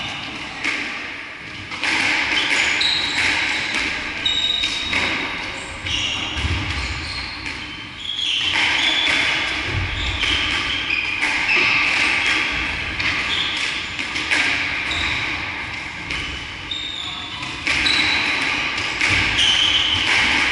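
Squash being played on a wooden-floored court: sharp hits of the ball on racket and walls, and many short high squeaks of court shoes on the floorboards, scattered irregularly.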